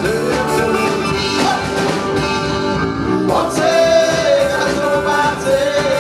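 Live band playing a song: a sung lead vocal over electric bass, guitars and drums.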